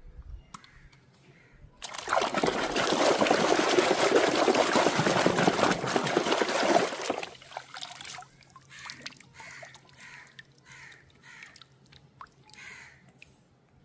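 Water pouring in a steady stream for about five seconds, then stopping, followed by fainter intermittent water sounds.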